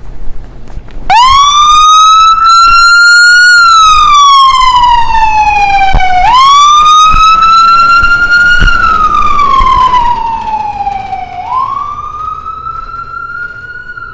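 Ambulance siren sounding a wail as the medic unit leaves on an emergency call. It starts about a second in and slides up and down in pitch about every five seconds, close to three cycles. It grows fainter over the last few seconds as the ambulance drives away.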